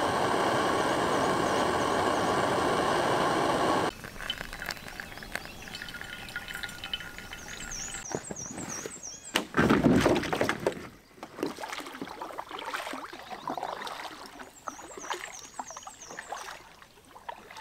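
Backpacking canister stove burning with a steady roar that stops abruptly about four seconds in. Later, hot water is poured from a camp pot into a pour-over coffee filter, loudest about ten seconds in.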